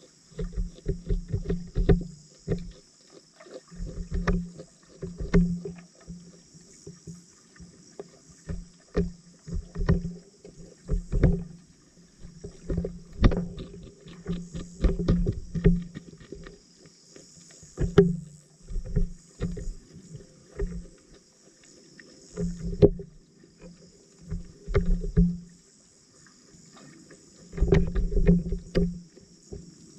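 Muffled knocks and pops picked up by a camera underwater, coming in irregular clusters of quick strokes a second or two long, over a steady high hiss.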